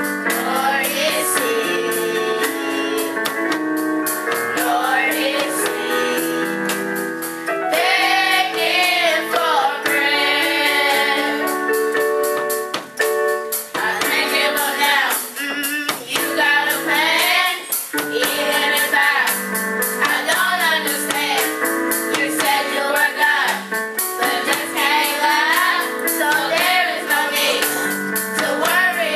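A group of children and a woman singing a gospel song together, over held keyboard chords, with a tambourine keeping a steady beat.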